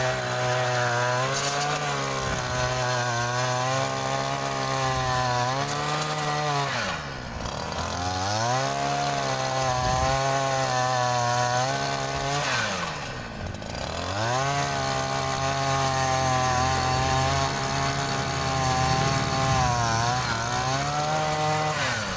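56cc two-stroke earth auger engine running at high revs with an 8-inch bit, boring into the ground. Its pitch drops sharply and climbs back twice, about seven and thirteen seconds in.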